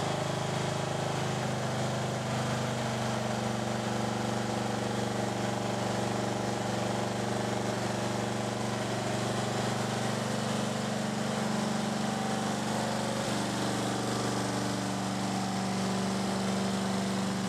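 Engine of a repaired Craftsman riding mower running steadily at an even speed.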